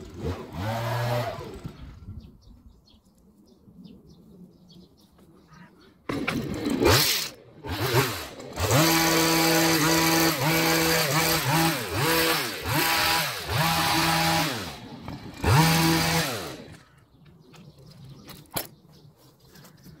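Petrol long-reach hedge trimmer running, its small engine throttled up to high revs and back down again and again as it cuts a beech hedge. This runs from about six seconds in until it dies away a few seconds before the end, with a shorter burst of revs near the start.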